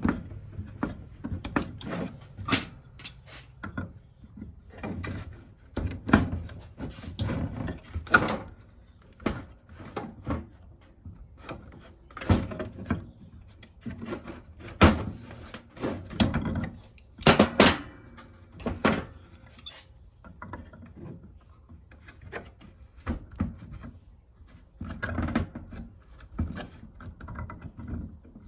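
Handling noise from the eductor fitting being threaded on during reassembly: irregular knocks, clicks and rubbing of parts, with short quiet gaps between.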